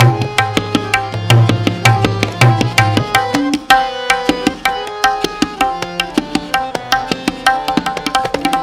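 Tabla solo: a rapid, dense stream of strokes on the treble drum with resonant bass-drum strokes, playing a kayada in khand jaati (phrasing in groups of five). The deep bass strokes drop out for a while around the middle and return near the end.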